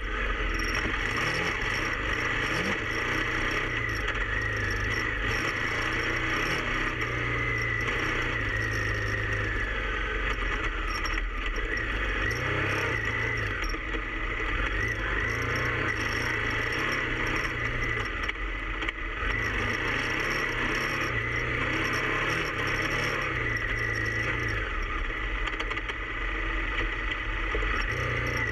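KTM 990 Adventure R's V-twin engine running as the bike is ridden, its pitch stepping up and down with the throttle, over a steady rush of wind and riding noise with some rattling.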